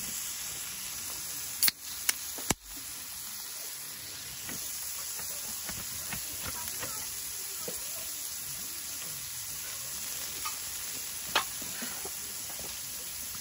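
Steady sizzling hiss of food frying, with three sharp clicks close together about two seconds in and one more near the end.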